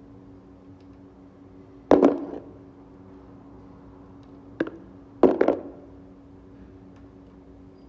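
Sharp metallic knocks of loose engine parts being handled and set down during teardown: one about two seconds in, another a little past halfway, then a quick double right after. A steady low hum runs underneath.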